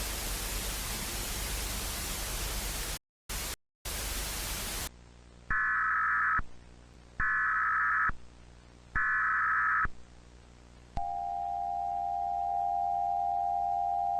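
Loud television static, cutting out briefly twice, that gives way to an Emergency Alert System broadcast signal: three short buzzing data bursts, then the steady two-tone attention signal held for about four seconds.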